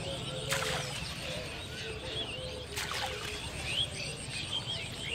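Birds chirping around a pond, with a low call repeating steadily underneath. Twice a brief sharp plop as thrown bait hits the water.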